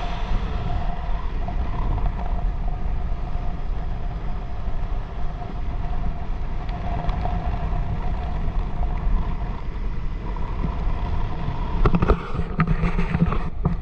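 Motorboat engine running steadily under a constant low rumble, with a brief clatter of knocks near the end.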